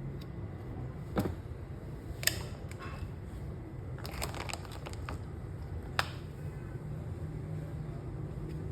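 Scattered sharp metallic clicks and clacks of a 9mm HS-9 pistol being handled, a few single clicks and a quick cluster about four seconds in, over a steady low hum.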